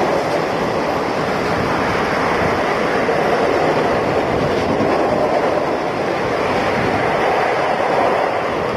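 Passenger coaches of an express train passing at speed close by, a steady rush of wheel and air noise that keeps on without a break.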